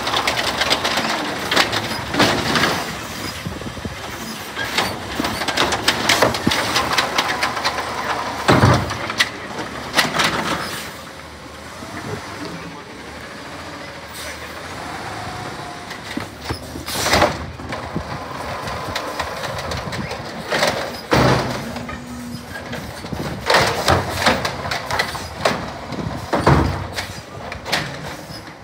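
Natural-gas Peterbilt garbage truck with an Amrep automated side-loader arm emptying a trash cart: the engine and hydraulics run while sharp bangs and knocks come from the cart and arm as the cart is dumped and set back down, several more knocks following as the truck moves off.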